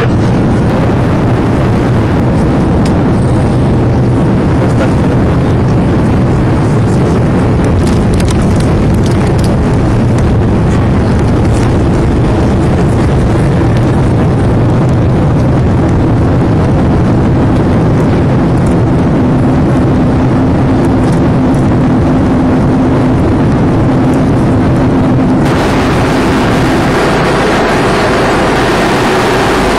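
Airbus A310-300's jet engines heard from inside the cabin over the wing: a loud, steady rumble with low hums. About 25 seconds in it cuts to the steadier, hissier cabin noise of the airliner in flight.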